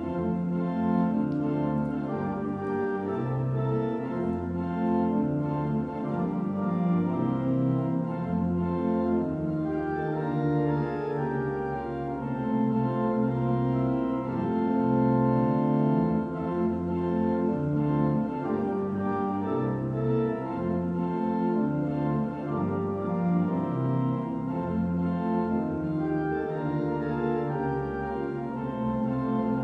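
Church pipe organ playing the postlude after the final blessing: continuous full chords with a moving bass line.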